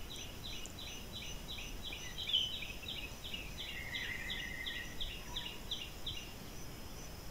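Forest ambience with a small animal's call: a short high note repeated about three times a second, stopping about six seconds in, and a brief buzzy trill around four seconds in, over a faint steady high whine.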